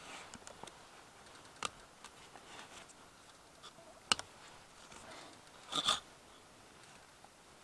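A few light clicks and taps over a faint hiss: one at about a second and a half, a sharper one about four seconds in, and a short cluster of clicks near six seconds.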